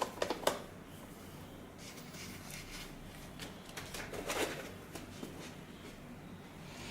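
A few light clicks and knocks from handling and adjusting the head unit's tilting screen panel on its mount: a quick cluster at the start and a couple more about four seconds in. A faint steady low hum runs underneath.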